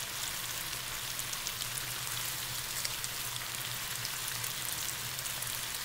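Pasta in a nonstick frying pan sizzling steadily with fine crackles as the liquid in it boils, over a steady low hum.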